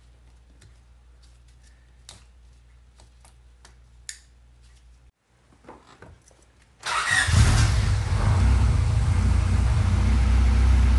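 A few small clicks of the distributor connector being plugged back in. About seven seconds in, a 2001 Acura Integra's four-cylinder engine starts abruptly and runs steadily: the first start on its new distributor cap and rotor.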